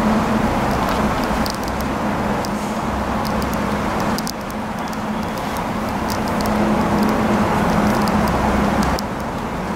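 Steady background noise with a low hum, over which rigid cardboard watch boxes give small scattered clicks and taps as their lids and sleeves are handled.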